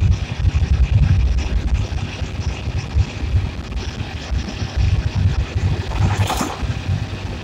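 Wind buffeting the microphone of a phone carried on a moving motorcycle, a loud, gusty low rumble. About six seconds in, a tractor passes close going the other way with a brief rush of noise.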